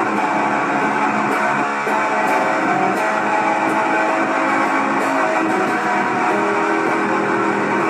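Guitar strummed steadily as the instrumental opening of a song, with no singing yet.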